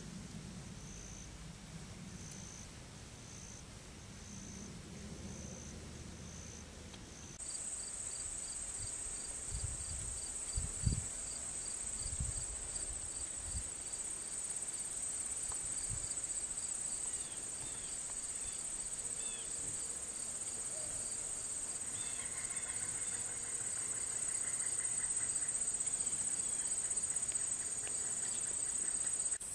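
Insects calling in the woods: at first a high chirp repeating a little more than once a second, then from about seven seconds in a continuous high trill over a faster pulsing chirp. A few low thumps and some short bird chirps come in partway through.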